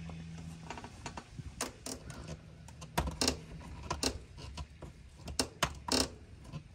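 Irregular metallic clicks and clacks of an Airstream door latch and its mounting hardware being handled and fitted onto the door, with a quick cluster of sharper clicks near the end.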